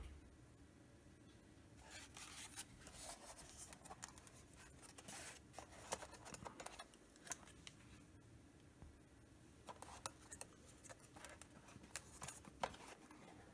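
Faint clicks and scraping of hands handling a plastic Wi-Fi router and swinging its hinged antennas upright, in two bouts of small ticks and rubs.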